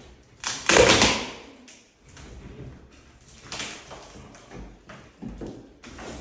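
Layers of old vinyl flooring and underlayment being pried and torn up off wooden floorboards: a loud rough tearing burst about half a second in, then quieter scrapes and knocks as the slab is worked loose.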